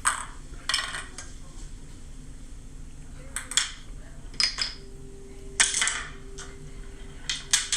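A Rube Goldberg chain-reaction machine built from kitchen objects running: irregular sharp clinks and clatters of metal and dishware a second or so apart, with a faint steady tone through the second half.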